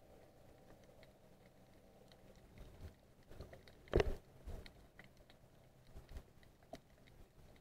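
Underwater sound as picked up by a baited underwater camera rig: scattered sharp clicks and ticks, with a dull knock about four seconds in and a few softer thuds after it.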